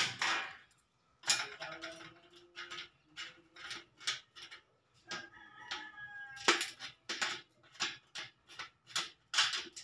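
Light, irregular metallic clicks and scrapes as a hand tool presses and bends the overlapped galvanized steel furring channels to lock the rivetless joint. A brief pitched animal call sounds in the background about five seconds in.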